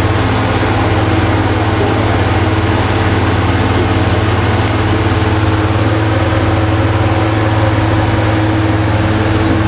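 Boat engine running steadily under way: an even, loud drone with a strong low hum, over a steady rush of water.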